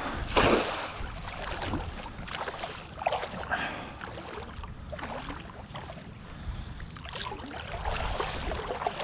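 A cast net landing on the water with a splash about half a second in, followed by irregular splashing and water noise as the net is hauled back in by its hand line.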